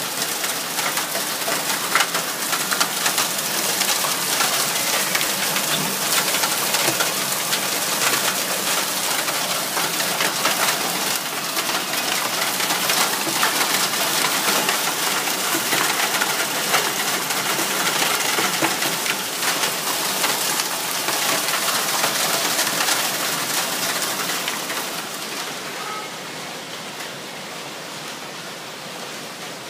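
Hail and heavy rain pelting a window and a concrete balcony ledge: a dense, steady clatter of countless small hits. The clatter drops in level and turns duller about 25 seconds in.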